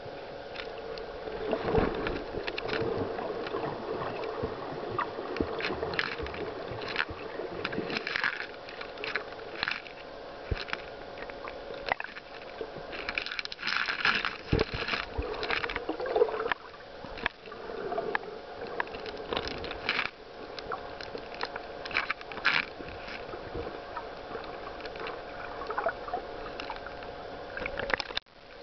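Water moving around an underwater camera while snorkeling: muffled sloshing and gurgling with irregular clicks and crackles over a faint steady hum. The sound drops out briefly near the end.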